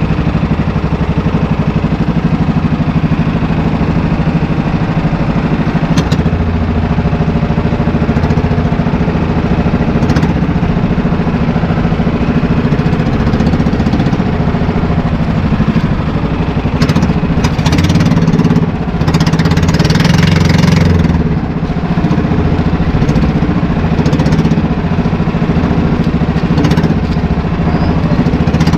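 Small outrigger fishing boat's engine running steadily under way, a low, even drone. Between about 17 and 21 seconds in, a louder rush of water splashes along the hull.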